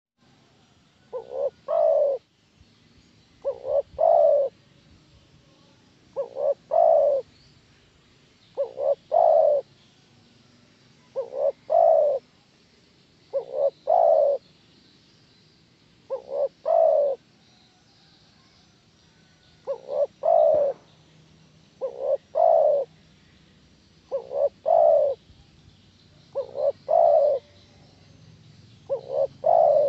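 Spotted dove cooing: a phrase of two short notes followed by a longer coo, repeated evenly about every two and a half seconds, twelve times.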